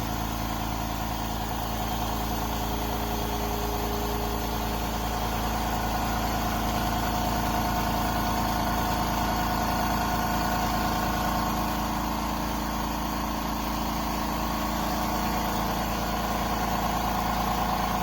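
Limodot oil-free electric air compressor running steadily, its motor and pump giving an even hum.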